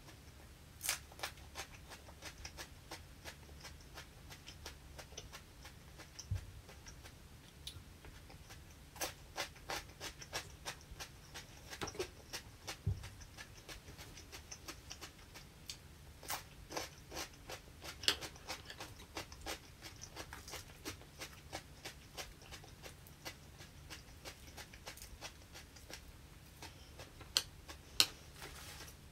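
Close-up eating sounds: crispy vegetable tempura being chewed and fresh salad greens being handled, a run of irregular sharp crunches and clicks, sharpest about 18 seconds in and twice near the end.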